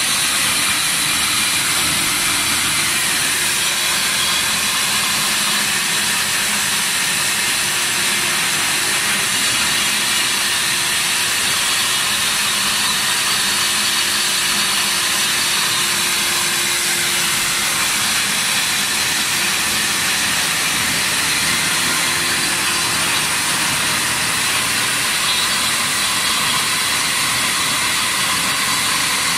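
A 250 single-phase concrete floor grinder running steadily, its abrasive head grinding the concrete floor: a constant loud hiss with a steady whine under it.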